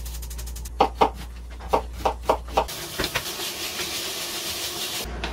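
Several sharp knocks, then from about three seconds in a steady sizzle of meat stir-frying in a wok, which stops shortly before the end.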